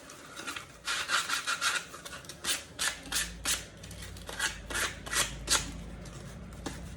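Hand sanding a foam shoe form with folded 100-grit sandpaper: a run of short, irregular scratchy rubbing strokes that thin out after about five and a half seconds.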